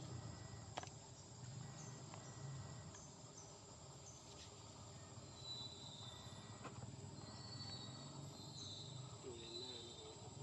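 Faint outdoor ambience of insects droning steadily on one high note, with a few scattered clicks and some short high chirps past the middle.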